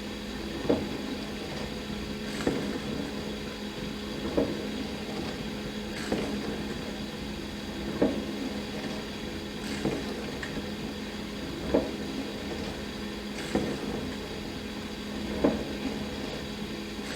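Dishwasher running through a wash cycle: a steady hum with water spraying inside, and a brief louder hit repeating evenly about every two seconds.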